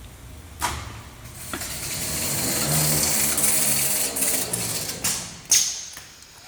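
Refrigerator evaporator tube-expanding machine working through a stroke: a clunk, then its drive runs for about three and a half seconds with a hum that builds and holds steady, ending in two sharp metallic knocks.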